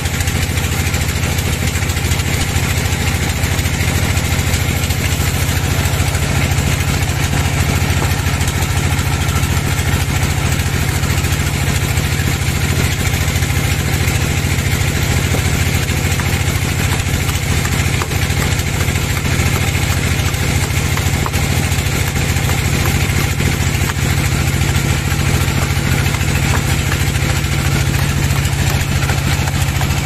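Band sawmill's engine running steadily, a constant low drone that does not change.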